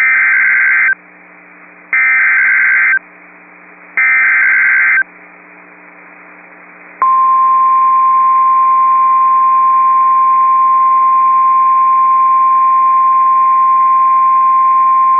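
NOAA Weather Radio Emergency Alert System activation: three one-second squawks of SAME digital header data about a second apart, then a single steady 1050 Hz warning alarm tone starting about seven seconds in. The sequence signals a Severe Thunderstorm Warning being broadcast.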